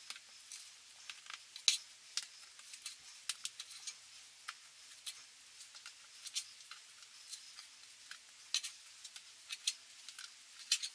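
Metal spoon scraping and clicking against a black pot while scooping out sticky cornflake and peanut-butter cookie mixture and dropping it onto wax paper. It makes an irregular run of light clicks and scrapes, several a second.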